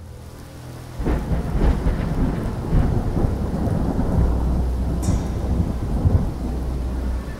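Thunderstorm: thunder rumbling over steady rain, swelling in about a second in.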